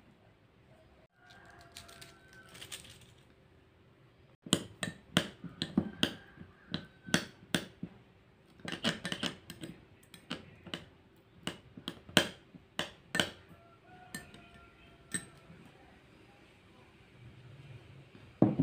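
Metal spoon clinking against a small glass bowl while stirring a piece of tamarind to dissolve it in water. It comes as a run of sharp clinks, about two a second, for roughly nine seconds.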